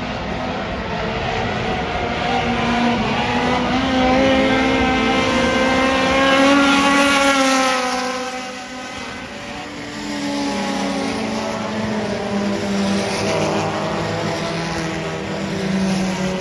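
Sport compact race cars' four-cylinder engines running on a dirt oval. The engine note climbs as cars come close, peaks about halfway through, falls away as they pass, then builds again as more cars come round.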